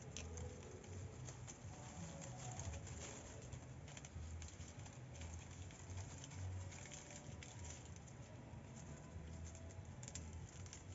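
Long green palm fronds rustling and crackling as they are handled and gathered into a bundle: soft, irregular crackles of leaf against leaf.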